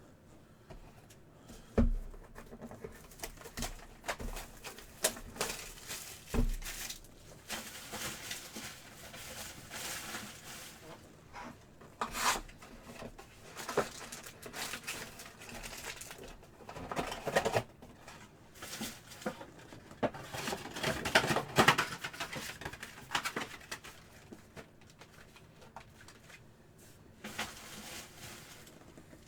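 Foil trading-card pack wrappers crinkling and tearing and cards sliding against each other as packs are opened and sorted, with two knocks on the table in the first few seconds.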